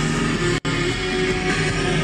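Rock music with guitar plays through the car's aftermarket CD player, cutting out for an instant about half a second in.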